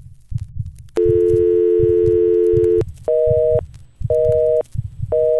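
Telephone dial tone held for about two seconds, then a busy signal beeping about once a second, three times, over a low rhythmic pulse.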